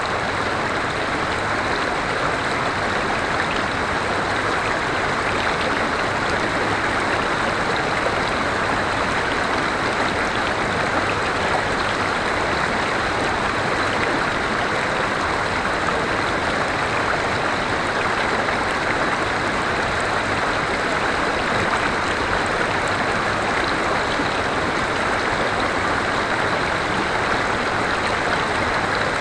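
River water flowing over rocks: a steady rush of running water.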